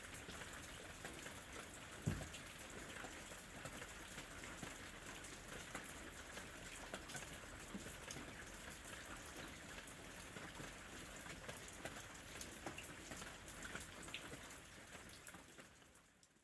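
Light rain falling: a steady hiss dotted with the patter of individual drops, with one louder low thump about two seconds in. The rain fades out near the end.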